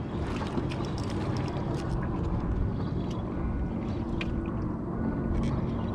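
Steady low rumble of motorboat engines and choppy lake water, with a few faint clicks scattered through it.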